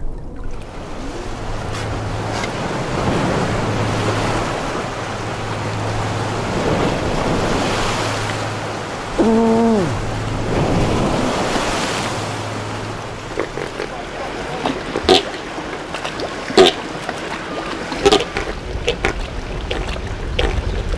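Open sea water lapping and washing, with wind on the microphone. A steady low hum runs through the first two-thirds, and a short pitched cry sounds about nine seconds in. Several sharp, short clicks come in the last third.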